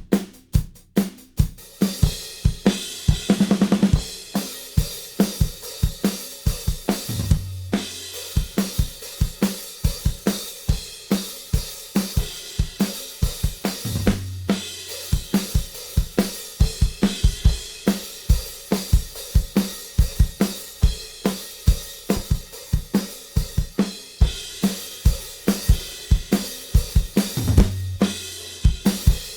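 Multitracked acoustic drum kit on a drum bus playing a steady pop-rock beat: kick, snare, hi-hats and cymbals, with a tom fill about three seconds in. The drum bus runs through a clean, transparent Z&H Designs V250 EQ with the low end heavily boosted.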